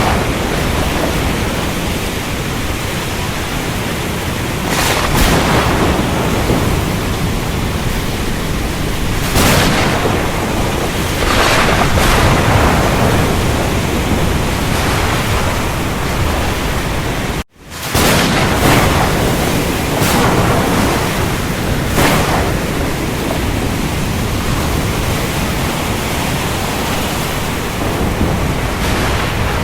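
Steady heavy rain hiss with low thunder rumbling underneath, swelling briefly several times. The sound cuts out for an instant a little past halfway and comes straight back.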